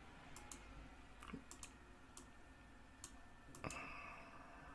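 Faint, scattered computer mouse clicks, about eight in a few seconds at an irregular pace, with a slightly louder one about three and a half seconds in; otherwise near silence.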